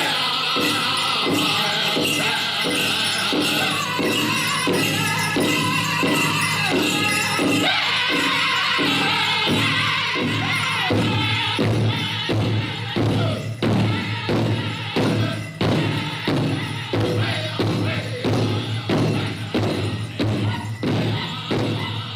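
A group of young men singing together in harmony over a steady thumping beat, about two beats a second. The beat comes through more clearly in the second half.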